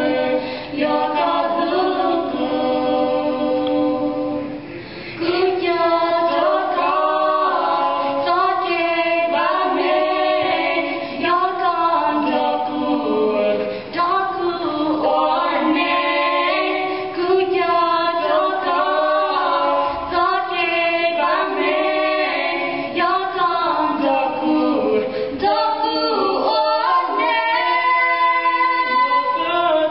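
Three women singing a Hmong song a cappella, with no instrumental accompaniment.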